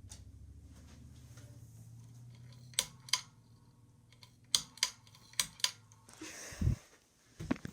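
Ceiling fan motor with a bad capacitor giving a low hum that fades out, with three pairs of sharp mechanical clicks in the middle, like a pull-chain switch being worked. A rustle and a low thump come near the end.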